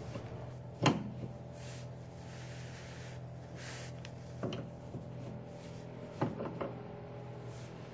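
Combination wrench clinking against a VW Rabbit's outer tie rod as it is fitted onto the tie rod's jam nut: a few sharp clicks, one about a second in and three between four and seven seconds in, over a steady low hum.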